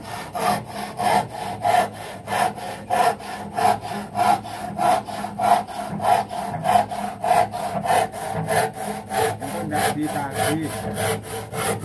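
Handsaw cutting through wooden wall boards in steady back-and-forth strokes, about three a second, trimming the uneven bottom ends of the boards straight.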